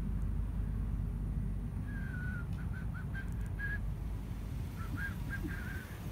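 Hydraulic dump hoist raising a steel dump bed, with a steady low rumble underneath. From about two seconds in comes a run of short, high squeaks as the bed tips up.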